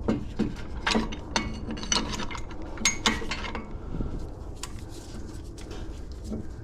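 Irregular metallic clicks and clinks of a large C-clamp being screwed in against a brake pad, pushing a brake caliper's pistons back. The clicks are thickest in the first few seconds and grow sparser after.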